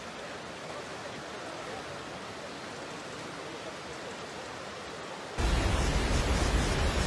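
Floodwater of a swollen river rushing past, a steady wash of noise. About five seconds in it cuts abruptly to a much louder, deeper rushing noise.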